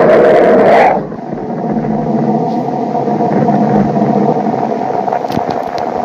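A space recording presented as the sound of the planet Mercury, a sonification, since space carries no sound. It is a steady rumbling, hissing drone with faint held tones, and a louder, brighter surge drops away about a second in.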